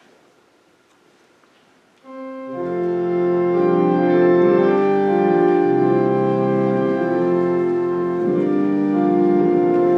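Church organ starts playing about two seconds in: held, sustained chords that shift from time to time, the introduction to the responsorial psalm. Before it comes a short stretch of quiet room with a few faint knocks.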